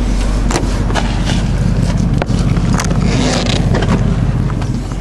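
Handling noise from a hand-held camera: rubbing, scraping and knocking against clothing and the car's interior as a man climbs out of a car seat, over a steady low rumble.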